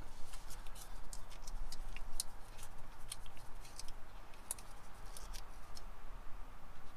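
Scattered small clicks and ticks of hands working at a brake caliper bracket, pulling the caliper slide pins partway out of their rubber boots.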